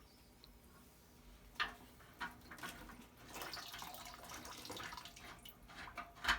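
Water running and splashing from a drain hose into a bucket, with a sharp knock about a second and a half in and another loud knock near the end.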